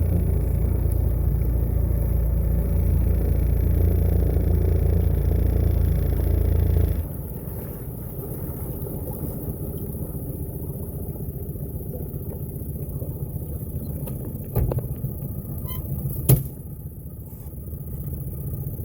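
Boat motor running steadily, then throttled back to a lower idle about seven seconds in. Two sharp knocks come a couple of seconds apart near the end.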